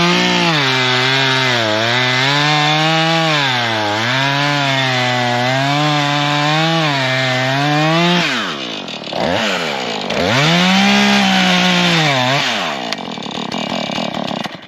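Husqvarna 440 two-stroke chainsaw running at high revs while cutting wood, its engine note dipping under load and recovering about every two seconds. After about eight seconds the revs fall sharply, climb once more for a couple of seconds, then drop away near the end.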